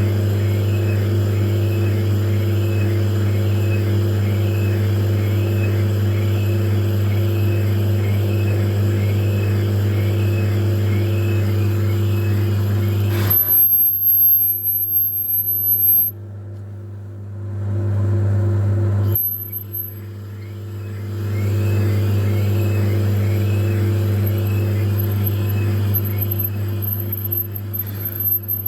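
Metal lathe running steadily while a boring tool cuts the combustion bowl of a VW 1.9 TDI PD piston larger. About midway the sound cuts out suddenly and drops for a few seconds, then the hum comes back.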